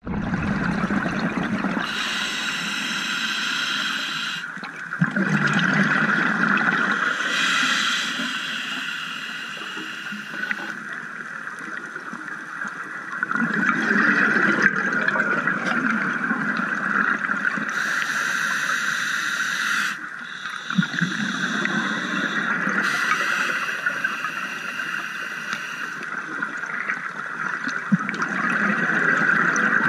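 Underwater sound of divers breathing through open-circuit scuba regulators, with exhaled bubbles gurgling up in bursts every few seconds over a steady hiss.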